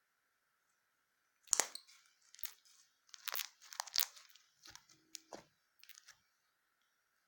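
Slime being squeezed and pulled by hand, giving a run of crunchy crackles and pops that start about a second and a half in and die away about a second before the end.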